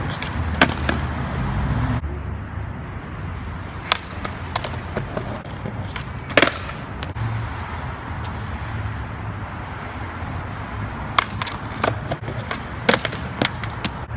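Skateboard wheels rolling over pavement with a steady rough rumble, broken by several sharp clacks of the board's deck and tail hitting the ground.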